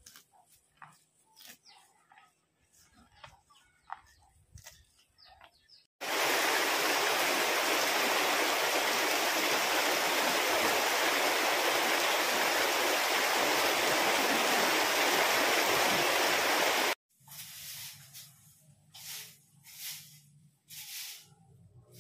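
Faint crunching and tearing of a water buffalo chewing fresh grass. Then a loud, even hiss that cuts in abruptly about six seconds in and cuts off abruptly about eleven seconds later. After it comes a low steady hum with a few soft puffs.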